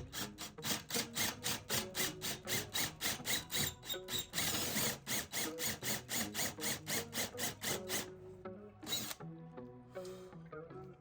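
Background music with a quick, even ticking beat of about four a second, and a short burst of hiss about four seconds in.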